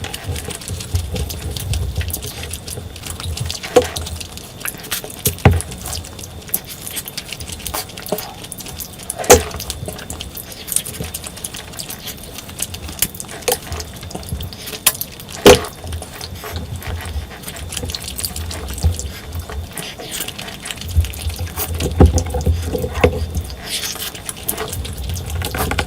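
Close-miked eating of curry and rice: wet chewing and smacking with scattered sharp clicks.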